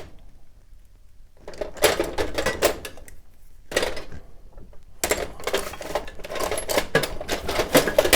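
Small metal hand tools clinking and rattling as they are rummaged through by hand, in bursts of quick clicks with short pauses between, starting about a second and a half in.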